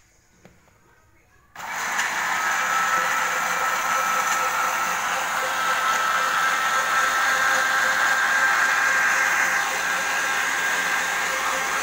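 Electric kitchen blender switched on about a second and a half in, then running steadily with a steady whine over the motor noise. It is blending papaya leaves with water into a smooth herbal juice.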